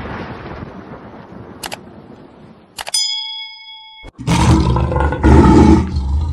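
Edited-in sound effects: a noisy rumble dies away, then a single bell-like ding rings for about a second. About four seconds in, a loud, rough, deep rumbling noise starts.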